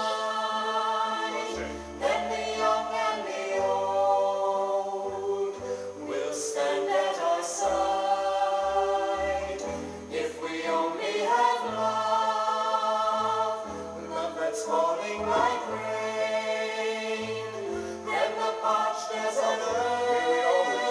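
Music: a choir singing a slow ballad in English, holding long notes.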